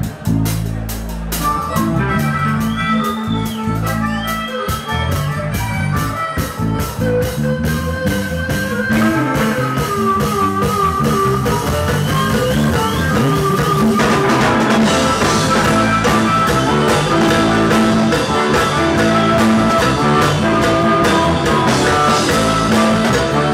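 Live rock band playing an instrumental passage: electric guitars and a drum kit, with a harmonica played into the vocal microphone. The band grows fuller and a little louder about halfway through.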